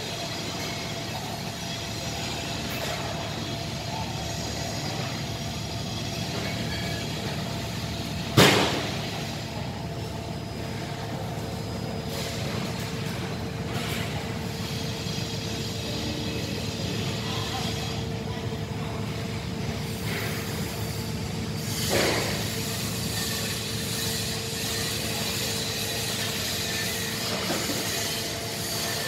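Steady machinery hum in a large industrial hall, with one loud sharp knock about eight seconds in and a smaller one about twenty-two seconds in. A steady tone joins the hum from about ten seconds on.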